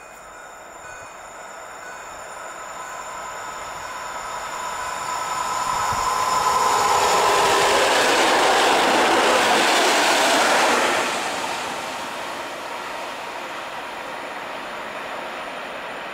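PolRegio EN61 electric multiple unit approaching and passing at speed: the rush of wheels on rail builds to a loud peak with a steady electric whine from about six to eleven seconds in, then drops away quickly to a lower rumble as it recedes.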